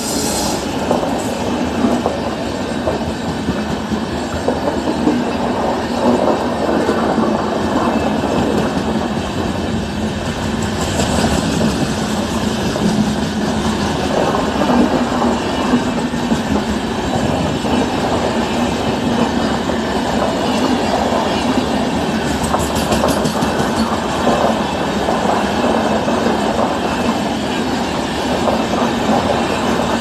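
Express passenger train passing at speed without stopping: the wheels of its long string of coaches clatter on the rails in a steady, continuous rumble.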